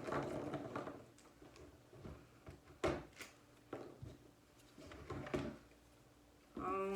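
Plastic packaging and foam darts being handled and opened: a rustle at the start, then a few sharp clicks and taps spaced out over the next few seconds.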